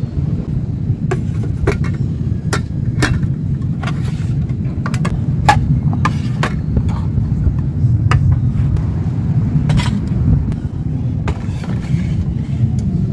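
Metal pots, lids and plates clinking and knocking as they are set down one by one on a wooden shelf, a dozen or so sharp taps at irregular intervals. A steady low rumble runs underneath.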